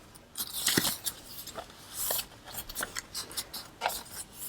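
Paper pages of a handmade junk journal being turned and handled, with several short rustles and soft rubbing sounds of paper against paper.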